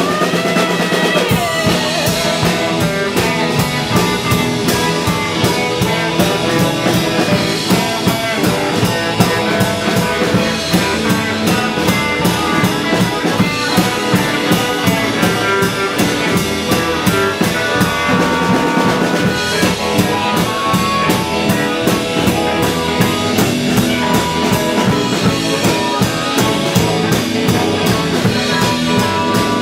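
Live band playing with a drum kit, bass drum, rimshots and guitar over a steady beat.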